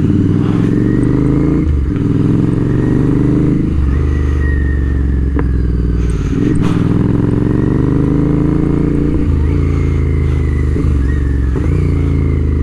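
Royal Enfield Interceptor 650's parallel-twin engine through an aftermarket SS Motocorp exhaust, its revs rising and falling several times under throttle and gear changes, with a few sharp pops on the overrun.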